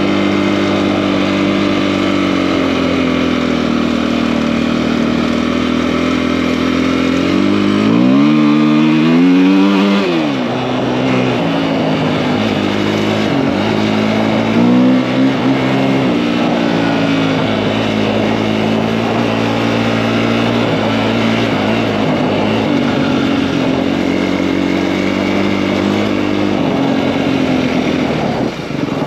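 KTM 250 EXC-F enduro bike with a 280 big bore kit, its single-cylinder four-stroke engine running at steady cruising revs. A third of the way in it revs up and eases back off, then a few smaller throttle changes follow before it settles again.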